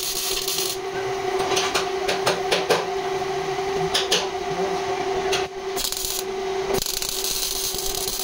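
MIG welder arc crackling and spitting as it welds the steel front chassis and inner apron, in short runs with brief pauses past the middle, over a steady hum.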